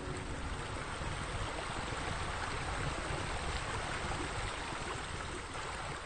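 Steady rush of running water, an even splashing noise with no breaks.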